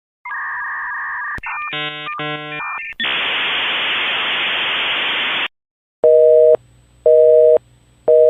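A series of telephone-line tones: a steady two-note tone, a quick run of multi-note chirps, a few seconds of hiss, then three half-second busy-signal beeps about a second apart.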